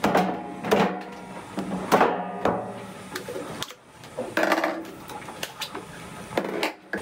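PVC drain pipe and elbow fittings clunking and clattering as they are pulled apart and handled after a dry fit: a string of knocks, several ringing briefly.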